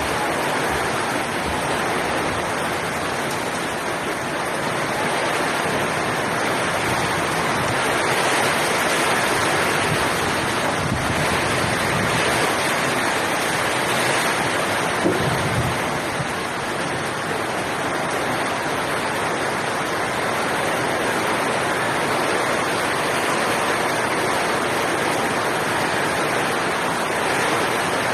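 Heavy typhoon rain pouring down, with rushing water, as a steady loud hiss that rises and falls a little.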